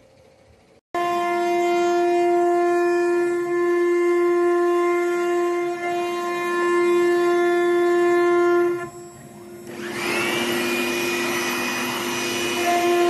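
Spindle of an ART 1325T CNC router running with a steady high whine, starting abruptly about a second in. It dips briefly near the middle, then a louder rushing noise with a rising whine takes over as the bit cuts into the wood.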